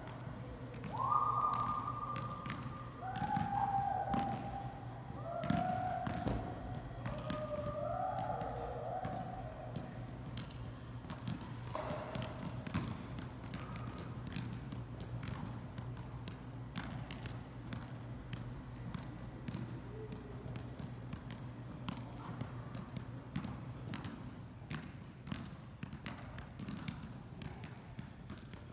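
A size 2 soccer mini ball being juggled, its light taps off the feet repeating irregularly. In roughly the first ten seconds several drawn-out tones of unclear source sound over it, each held about a second and stepping up and down in pitch; these are the loudest sounds.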